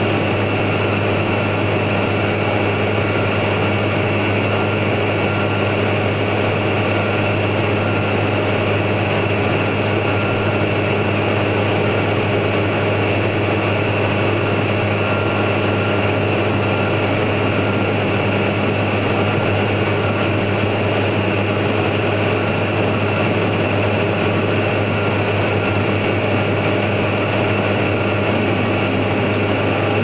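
Steady drone of a tractor's diesel engine pulling a chaser bin beside a working combine harvester, with a strong constant low hum and no change in pitch.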